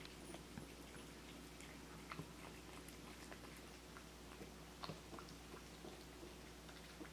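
Faint, scattered wet clicks of a cat eating soft wet food from a ceramic bowl, a cat with all its teeth extracted mouthing and licking the food rather than chewing neatly. A steady low hum sits underneath.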